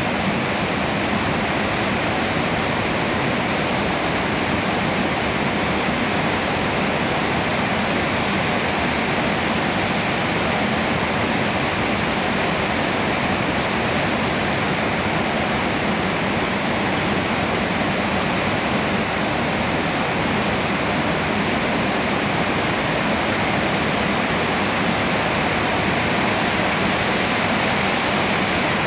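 Steady rain falling on leafy trees: an even, unbroken hiss.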